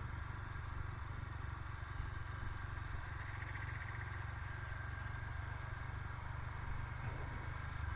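Renegade 200 motorcycle engine running steadily at an even pace while being ridden, through an aftermarket, non-stock exhaust.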